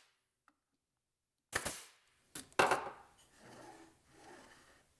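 Staple gun firing two sharp shots about a second apart, driving staples into the wooden jig. Then a softer scraping, twice, as the wooden jig is slid back and forth along the table saw's rip fence to check that it moves without wobbling.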